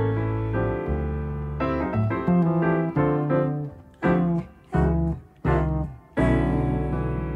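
Jazz piano and double bass duo playing an instrumental passage, with low bass notes under the piano. In the second half the music stops short four times in a row, about every 0.7 seconds, with brief silences between clipped chords.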